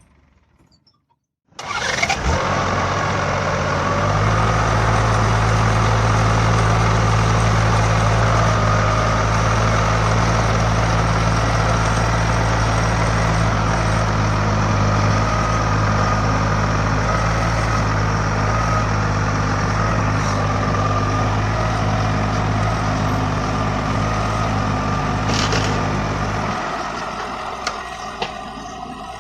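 Heavy vehicle's engine running loud and steady after a sudden start, with a deep hum; near the end the deep hum cuts out, leaving quieter noise.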